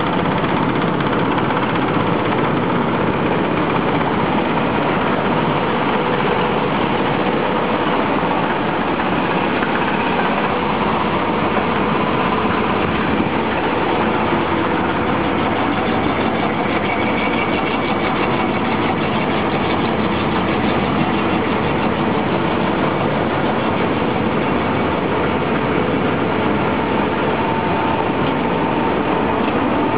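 Grain cleaner and its belt conveyors running: a steady, even mechanical noise with a faint hum under it.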